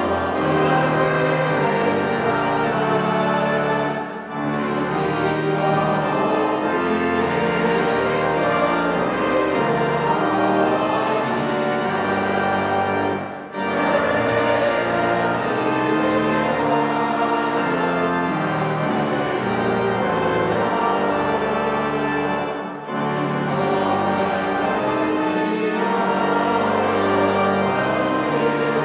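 Church choir singing a hymn or anthem with pipe organ accompaniment. The music is broken by three short pauses between phrases.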